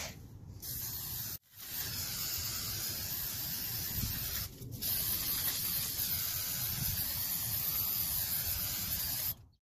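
Aerosol spray-paint can spraying black paint, a steady hiss: a short burst, then one long spray with a brief break midway, stopping suddenly near the end.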